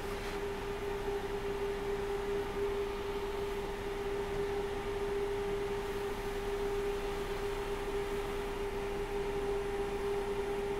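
A steady mid-pitched hum with a fainter, higher tone above it, over a low hiss.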